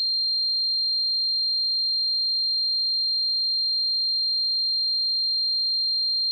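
Synthesized tinnitus sound effect: a single steady, high-pitched pure tone that stays unchanged, imitating the ringing in the ears of tinnitus.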